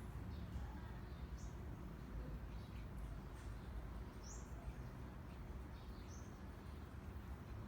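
Small garden birds chirping: short, high single chirps every second or two, the loudest about four seconds in, over a steady low rumble.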